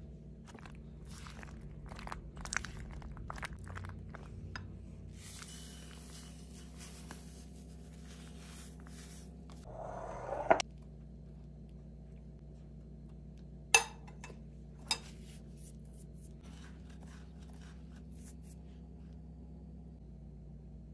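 Silicone spatula stirring batter-coated penne in a glass bowl: soft wet scraping and light taps against the glass. Near the middle comes a short rising scrape that ends in a sharp knock, then two more sharp knocks a second apart, over a low steady hum.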